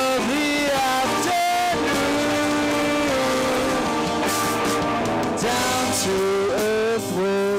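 Live rock band playing an instrumental passage: electric guitars over drums and crashing cymbals, with held notes that bend in pitch.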